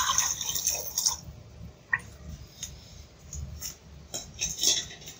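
Reduced milk pouring from a pot into a hot nonstick pan, splashing for about the first second, then a few light clinks of pots and utensils.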